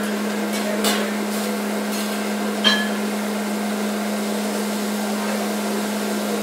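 Teppanyaki griddle sizzling with a steady hiss over a constant low hum. A metal spatula clinks on the griddle twice, about one and three seconds in; the second strike is sharper and rings.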